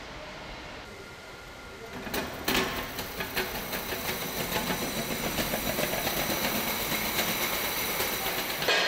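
Low steady hum of the continuous rice-cooking machine. About two and a half seconds in, a loud, dense clatter begins: lidded rice pots rattling along a steel roller conveyor.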